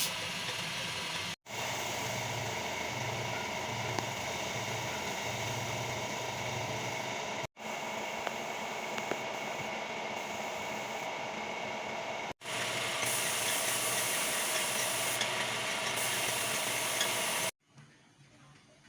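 Steady hiss of paint being sprayed, in several stretches broken by abrupt cuts, falling to faint background noise near the end.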